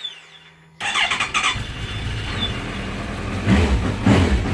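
Suzuki Bandit 1250's inline-four engine on its stock exhaust being started: the electric starter cranks, pauses and cranks again, the engine catches about a second and a half in and runs, getting louder twice near the end.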